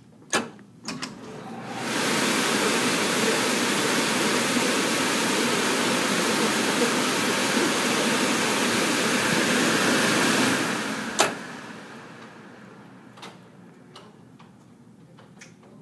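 Corded electric leaf blower switched on, spinning up over about a second to a loud, steady rush of air, then winding down about eight seconds later, with a sharp click as it dies away.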